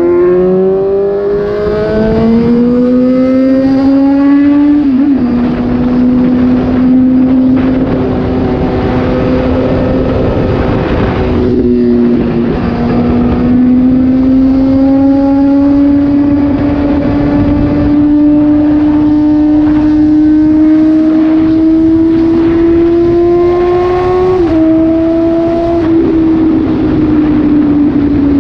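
Suzuki GSX-S750 inline-four engine through an SC-Project slip-on exhaust with the dB killer removed, under way. The revs climb for the first few seconds, drop with an upshift about five seconds in, then hold and rise slowly, with another shift near the end.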